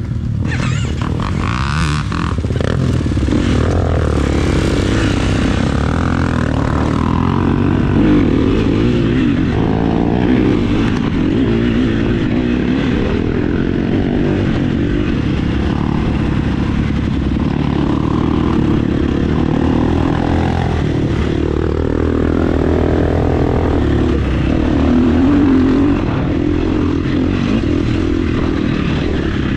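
Off-road vehicle engine running and revving, its pitch rising and falling continuously.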